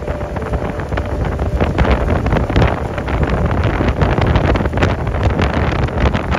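Strong wind buffeting the microphone: a loud, gusting low rumble with crackling spikes throughout.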